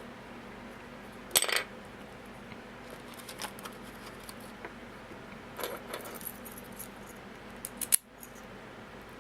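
Small metal parts of an American Lock 1100 padlock and the tools used on it clinking as they are handled during disassembly: a loud short clatter about a second and a half in, scattered light clicks, and two sharp clicks near the end.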